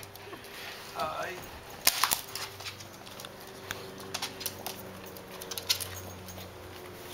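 A dog's short yip about a second in, then a few sharp knocks near two seconds and scattered clicking of dogs' claws scrabbling on the wooden floor and couch.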